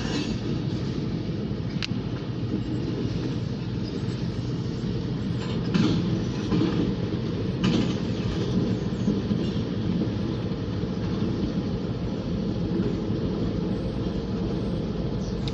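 Freight train of grain hopper cars rolling past with a steady low rumble and occasional sharp clicks from the wheels over the rail joints, a little louder about six and eight seconds in.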